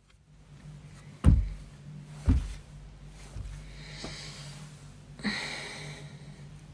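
Handling noise: two loud low thumps about a second apart, then a softer one, followed by brief rustling, over a steady low hum.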